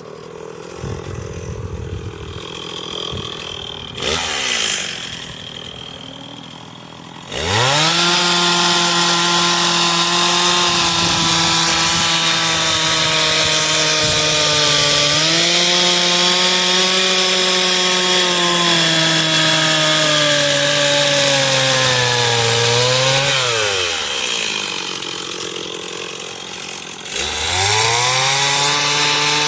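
Chainsaw idling, blipped briefly about four seconds in, then revved to full throttle at about seven seconds and held there for some fifteen seconds while cutting into the wood of the carving, its pitch sagging under the load. It drops back to idle, then revs up again near the end.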